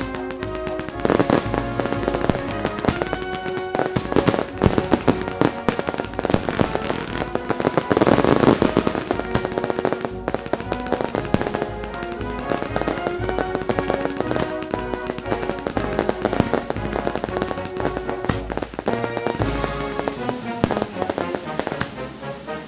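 Fireworks going off, many bangs and crackles in quick succession, over music playing throughout; the loudest burst comes about eight seconds in.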